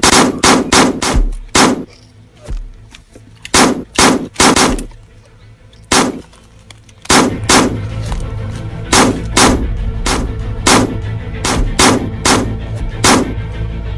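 Handgun shots, about twenty in all, in quick bursts with short pauses between them. From about halfway a steady music bed plays under the continuing shots.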